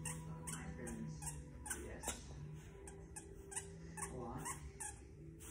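A puppy whimpering and yipping, with short rising whines about two seconds in and again about four seconds in.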